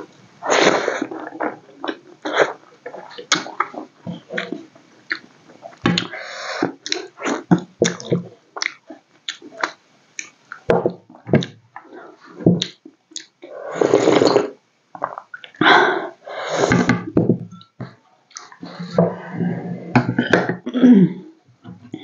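Mouth sounds of eating rice and besan-fried vegetables by hand: wet chewing and lip-smacking in uneven bursts, with many short sharp clicks between them.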